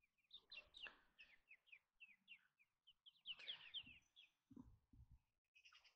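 Faint bird chirping: runs of short, quick falling chirps, three or four a second, in two bursts and a brief third one near the end. A few soft low thuds come about four and a half seconds in.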